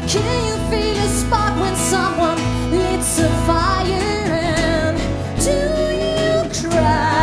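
Live acoustic band playing a song: a woman sings lead over acoustic guitar, a second guitar and upright double bass.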